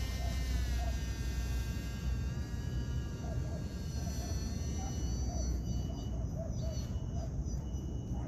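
Electric motor of an MHZ Micro Iceberg RC boat whining out on the water. The pitch dips slightly about a second in, and the whine fades away by about four to five seconds as the boat runs farther off. Wind rumbles on the microphone throughout, and scattered bird calls come in during the second half.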